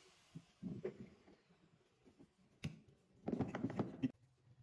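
Scattered light knocks and clicks, with a denser spell of clattering from about three seconds in that stops abruptly about a second later.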